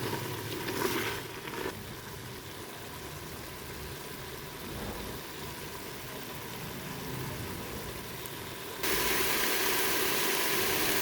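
Steady hiss and rumble of mutton cooking in water in a pot on the stove. About nine seconds in, the hiss suddenly becomes louder and brighter, then cuts off abruptly.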